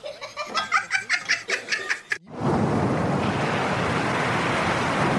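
A person laughing in quick repeated chuckles. About two seconds in, the laughter stops and a steady rush of surf and splashing water takes over.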